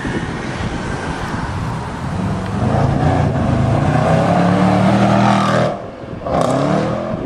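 Range Rover Sport SVR's supercharged 5.0-litre V8 accelerating hard as it drives past, its exhaust note rising and loudest through the middle. It dips briefly about six seconds in and picks up again.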